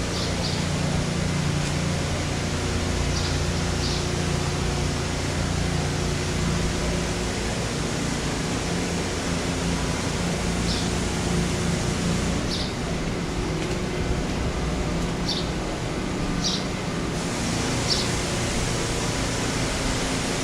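Steady rushing outdoor noise over a constant low hum, with a handful of short, faint high chirps scattered through it.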